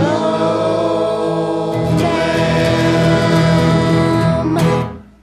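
The close of a children's folk song, voices singing together on a long held final chord that fades away near the end.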